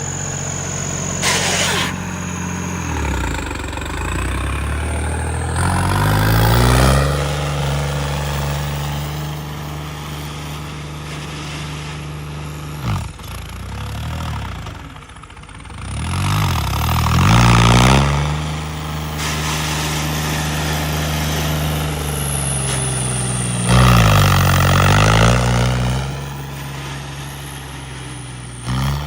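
Diesel tractor engines running hard under load, their pitch dropping and climbing again several times, with the loudest surges about two-thirds of the way in.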